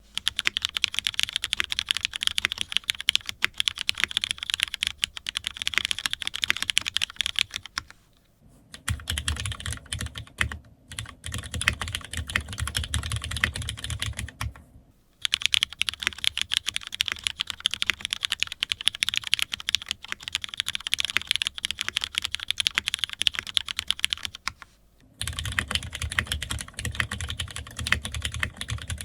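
Fast, continuous typing on a GeonWorks F1-8X V2 mechanical keyboard with linear Cherry MX Black switches on 16.5 mm progressive springs, a PEI plate and Linworks keycaps. The rapid keystrokes break off briefly about 8, 15 and 25 seconds in.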